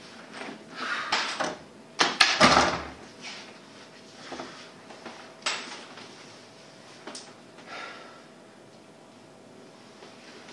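A wooden interior door being opened and shut: knocks and a latch click, loudest about two seconds in, followed by a few lighter clicks and rustles, with a small room's echo.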